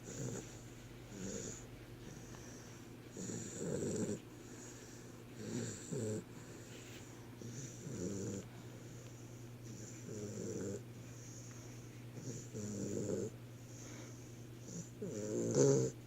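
Snoring: a short, soft snore about every two seconds, with a louder one near the end.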